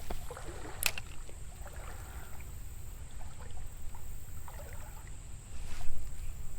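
Water splashing and trickling in a shallow creek, with two brief sharper splashes, one about a second in and one near the end.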